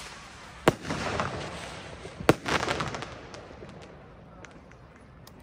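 Two Funke Delta 1200 F2 fireworks rockets bursting overhead about a second and a half apart. Each loud bang is followed by about a second of crackling, which thins out into a few scattered pops.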